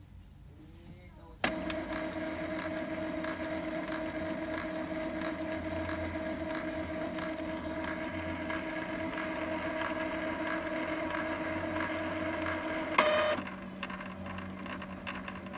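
Epson L3150 ink-tank printer's motor and mechanism running a power cleaning cycle, which flushes the ink through the tubes to clear clogged print-head nozzles. A steady mechanical whine starts suddenly about a second and a half in and runs until a sharp clack near the end, then gives way to a lower steady hum.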